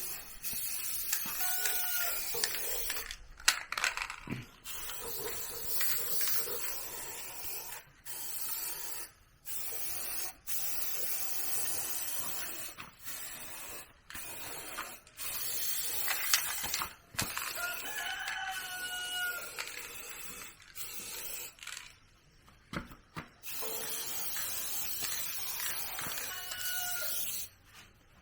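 A rooster crowing a few times: at the start, about two seconds in, around the middle and near the end. Under it runs a steady hiss that keeps cutting out and coming back.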